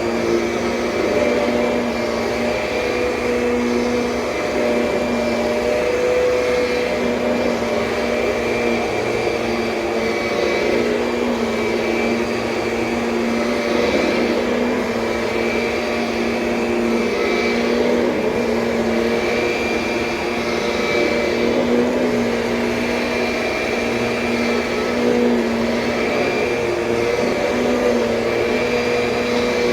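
A 2007 Kirby Sentria upright vacuum cleaner running steadily. Its motor hum wavers slightly in pitch and level.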